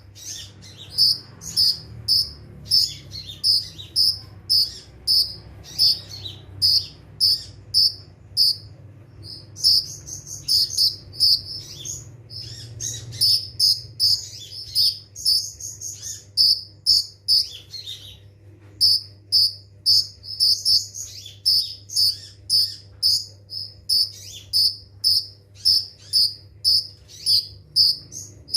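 Kolibri ninja sunbird singing its rapid 'nembak' song: sharp, high chips repeated about twice a second, broken by quicker rattling runs twice in the middle, over a faint low hum.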